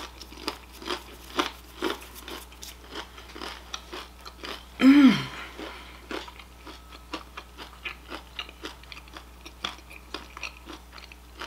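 Close-up chewing of crunchy breaded oven-fried shrimp, with many small crisp crunches throughout. About five seconds in, a short, loud closed-mouth vocal sound of relish breaks in, its pitch rising briefly and then falling.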